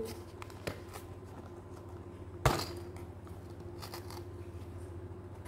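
Fingers picking and prying at a small glued cardboard box that will not open, with faint scratching and light clicks. There is one sharp crack of the cardboard about two and a half seconds in, over a low steady hum.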